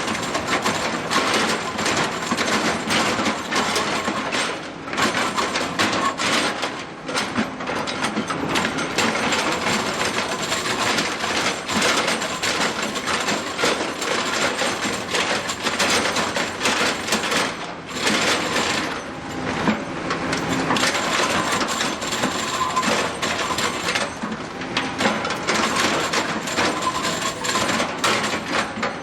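Hydraulic rotary drum cutter on an excavator milling solid stone, its picks chipping the rock in a continuous dense clatter with a few brief lulls.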